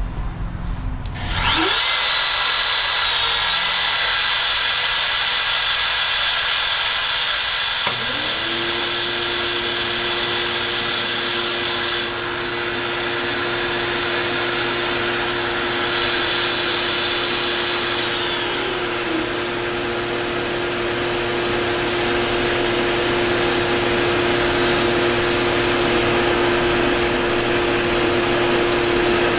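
CNC router spindle spinning up about a second and a half in, then running steadily with a high whine. A second motor with a lower steady tone starts up around eight seconds in and runs alongside it.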